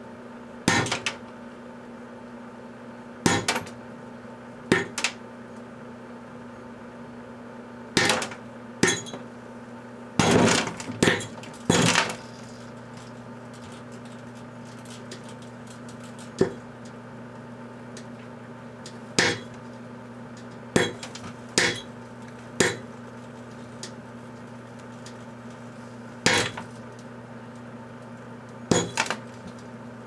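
Microwave oven humming steadily while button-cell watch batteries heated inside it burst one after another with sharp bangs, about fifteen in all at irregular intervals, several in a quick cluster partway through.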